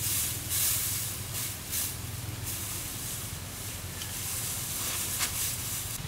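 Dry straw rustling and crackling as bundles are handled and pushed against a bamboo frame, loudest over the first couple of seconds, then softer with a few light snaps.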